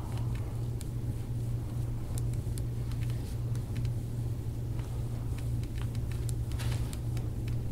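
Steady low hum with a rumble beneath it, like a room's air handler or fan, with faint scattered clicks on top.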